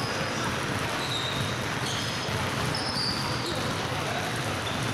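Many basketballs being dribbled at once on a hardwood gym floor: a continuous jumble of overlapping bounces, with brief sneaker squeaks now and then.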